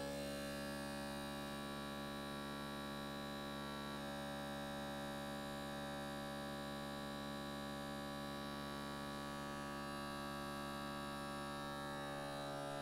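Steady electrical hum, an even buzz with many overtones that holds unchanged throughout.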